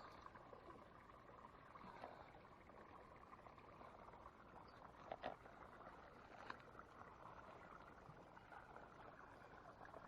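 Near silence: faint outdoor background hiss, with a few soft clicks about five and six and a half seconds in.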